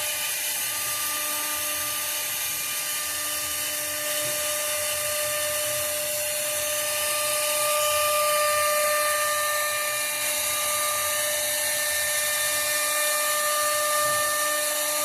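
Woodworking CNC router's spindle running steadily with a high whine and hiss as it cuts wood.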